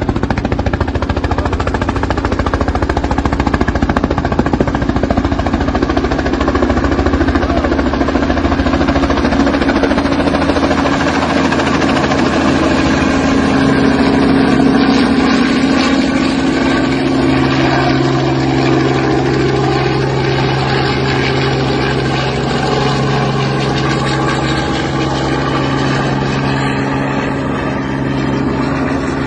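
Helicopter in flight: a steady, loud engine and rotor hum whose pitch shifts a little past the middle. A low rumble sits under it for the first ten seconds or so.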